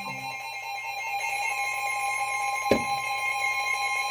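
Emergency Alert System attention signal: a steady, continuous electronic alarm tone held without a break. A single sharp click sounds about two and a half seconds in.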